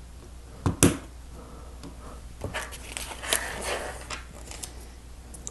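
Small plastic Lego pieces being handled and snapped together: a sharp click just under a second in, then scattered lighter clicks and rustling.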